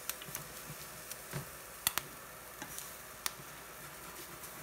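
Wooden spatula scraping and tapping against a nonstick frying pan as an egg is scrambled, over a faint steady sizzle. There are a few sharp taps, the loudest two close together about two seconds in.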